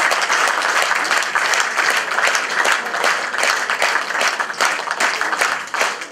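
Concert audience applauding, a dense clapping that thins into more scattered claps near the end.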